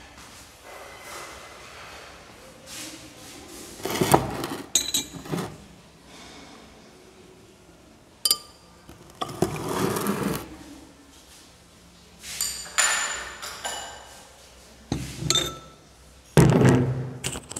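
Laboratory glassware and a metal filter stand being handled and set down on a wooden table: scattered clinks and knocks in several short clusters, a few of the glass clinks ringing briefly.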